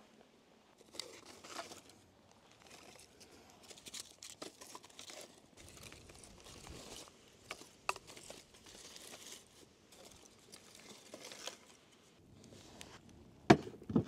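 Irregular rustling and crinkling of food-preparation handling, with scattered light clicks and one sharp knock near the end.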